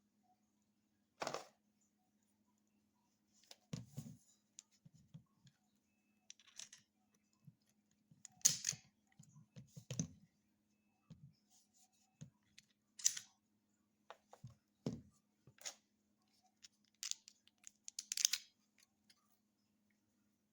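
Faint, scattered clicks, knocks and rustles of objects being handled, a dozen or so irregular sounds, over a faint steady low hum.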